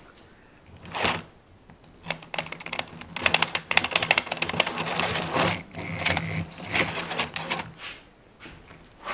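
Model steam locomotive handled on its track: a click, then a few seconds of rapid clicking and rattling from its wheels and mechanism over a steady motor hum as it is set running, stopping near the end.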